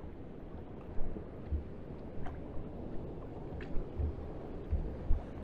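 Sea water washing against an inflatable boat, with gusts of wind rumbling on the microphone and a few light clicks and knocks scattered through.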